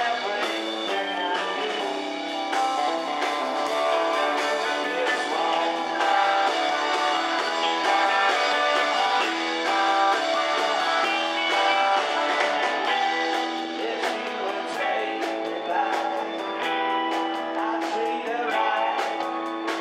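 Rock and roll band playing live: electric guitars and electric bass, with singing in places.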